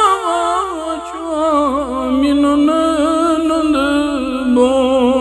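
A male voice sings a Kashmiri naat unaccompanied, drawing out long, wavering melismatic notes with no instruments heard.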